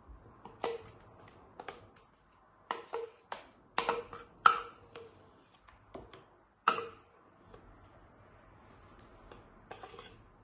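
A utensil clinking and tapping against a bowl and a greased baking pan as thick brownie batter is scraped out: about a dozen light, irregular knocks, several with a short ring.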